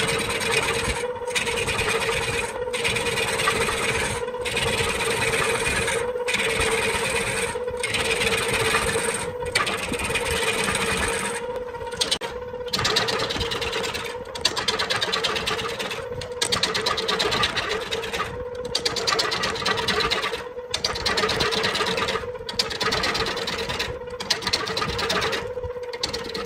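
Wood lathe running with a steady hum while a tool or abrasive scrapes the spinning wood in repeated passes. The scraping breaks off briefly about every one and a half to two seconds.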